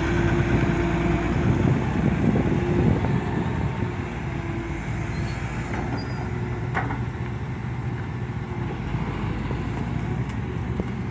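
Volvo EW145B wheeled excavator's diesel engine running steadily, with a steady pitched hum over the engine sound that fades out about two-thirds of the way through.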